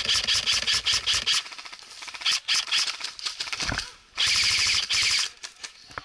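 Airsoft rifles firing in rapid full-auto bursts, three strings of quick sharp shots with short pauses between, the last one the densest and loudest.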